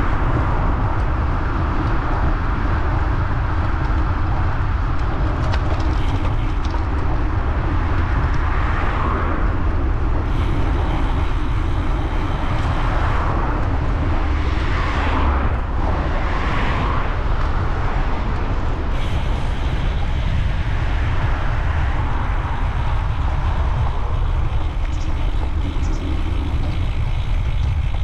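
Steady wind rumble on the microphone while riding a road bike along a main road, with road traffic; several vehicles swell past, most clearly around the middle.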